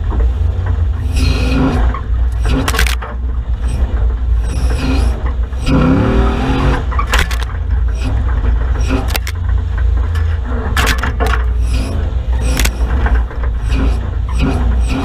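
Off-road four-wheel-drive competition vehicle's engine running with a heavy steady rumble as it drives over a rough, wet bush track, with frequent sharp knocks and scrapes as it bounces along. Briefly revving up about six seconds in.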